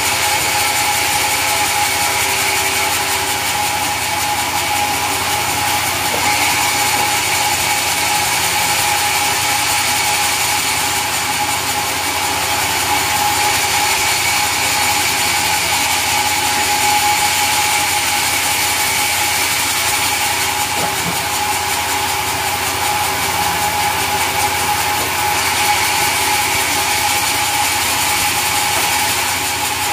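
Sawmill machinery running steadily, its motor and saw giving a continuous mechanical noise with a few held high tones.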